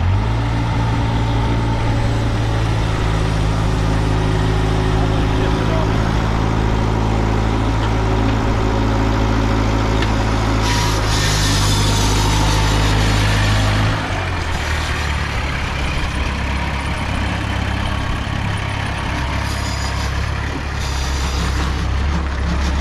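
Kubota V1903 four-cylinder diesel running steadily as the homemade tractor creeps along at low speed. About two-thirds of the way in, the engine note drops to a lower, slightly quieter pitch.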